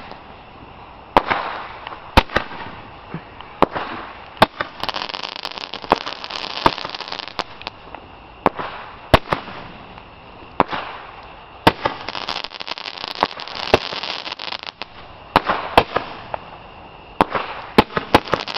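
Consumer aerial fireworks going off: a dozen or so sharp bangs at uneven intervals, with stretches of hiss between them.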